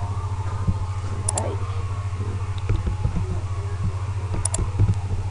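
A few computer mouse clicks over a steady low electrical hum.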